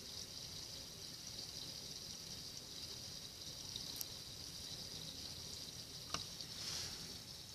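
Light spring rain falling as a faint, steady hiss, with two sharp ticks about four and six seconds in.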